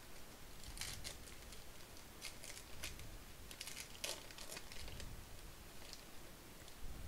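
Foil wrapper of a Topps baseball card pack being torn open and peeled back, crinkling in several short bursts.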